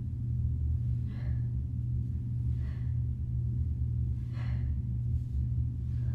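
A woman breathing out hard, about once every second and a half, in time with her V-ups, over a steady low hum.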